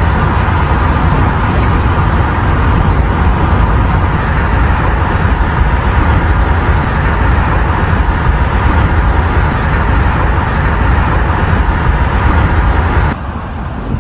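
Loud, steady vehicle engine and road-traffic noise from the roadside where a motor grader is working. It cuts off abruptly about 13 seconds in.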